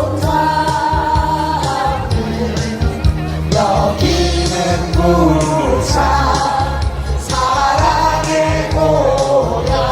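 A song sung by a group of voices over instrumental accompaniment, the melody carried in long held notes.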